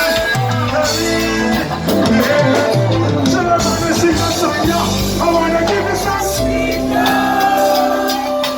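Live reggae band music playing steadily.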